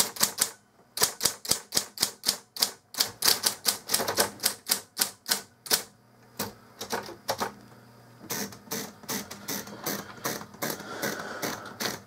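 1969 Royal Apollo 10 electric typewriter typing out a run of characters: fast, sharp type-strike clacks about four to five a second, with a short pause about halfway, over the steady hum of its motor.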